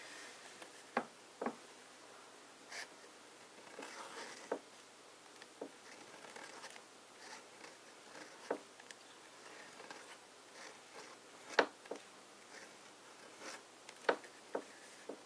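A flex-nib fountain pen writing on cheap copier paper: faint scratching of the nib across the paper, broken by a scattering of short sharp ticks as the nib touches down and lifts off.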